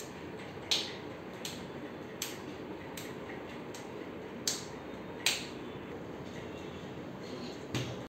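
A toddler making about six short, sharp slaps at uneven intervals, over a steady low room background.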